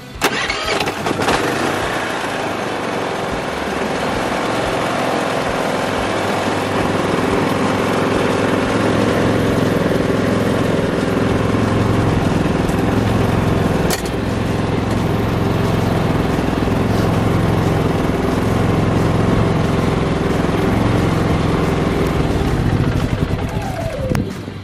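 Predator 3500 inverter generator's engine starting at once and running steadily. Near the end it is shut off and winds down with a falling pitch.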